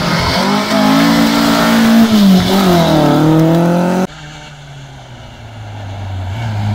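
Classic Alfa Romeo coupé rally car accelerating hard away from a turn, its engine revving up, dipping briefly and rising again. About four seconds in, the sound cuts suddenly to a quieter Renault 5 Turbo rally car approaching, its engine growing louder as it nears.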